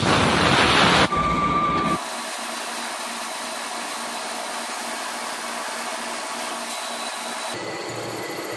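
CNC lathe turning a large metal cylinder with a carbide insert: a loud, even machining noise for about the first two seconds, then an abrupt drop to a softer steady hiss.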